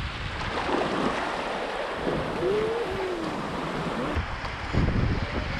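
Fast whitewater river rushing and splashing around a kayak's hull in a high-water rapid, with wind buffeting the microphone. A short wavering cry rises over it about halfway through.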